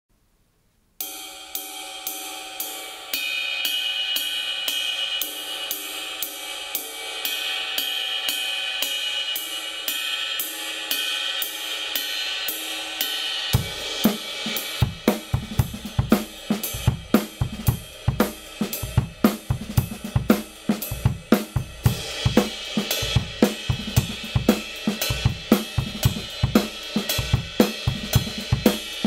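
Kingdo Collection Extreme 20" ride cymbal played alone in a steady ride pattern, each stroke ringing into the next. About halfway through, kick drum and snare come in and the ride keeps time over a full drum-kit groove.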